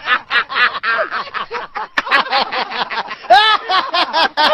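Men laughing heartily together in fast, repeated bursts, getting louder and higher about three seconds in.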